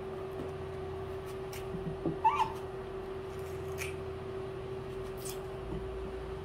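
A pet monkey gives one short squeak about two seconds in, rising and falling in pitch. Under it run a steady hum and a few light clicks.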